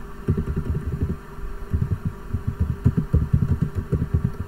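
Typing on a computer keyboard: quick, irregular keystrokes heard as dull low thumps, with a short lull about a second in, over a faint steady hum.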